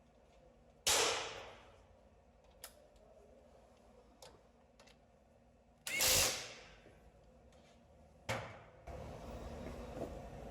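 Three sharp knocks, each ringing out for about a second, with a few faint clicks between. They come from tools and parts being handled while the front brake caliper is reassembled.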